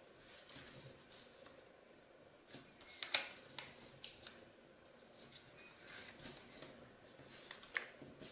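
Origami paper rustling and crinkling under the fingers as it is folded and creased by hand, in short faint crisp bursts, the loudest about three seconds in and another near the end.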